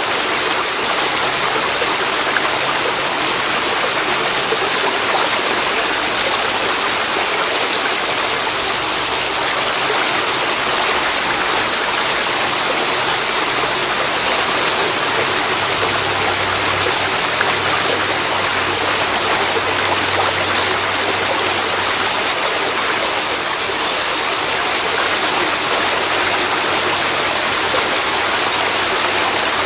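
Waterfall falling into a river: a loud, steady, unbroken rush of pouring and flowing water.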